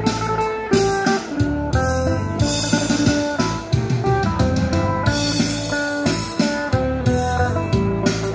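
Electric phin, the Isan lute, played through an amplifier: a fast plucked melody of bright, quickly changing notes with a regular pulse.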